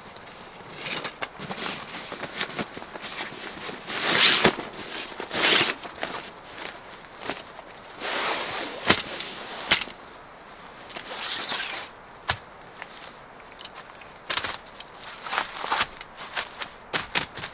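Nylon carry bag and fabric rustling and swishing as a folding elevated dog bed is pulled out and unrolled, with sharp clicks and snaps of its metal frame being opened, coming thicker near the end.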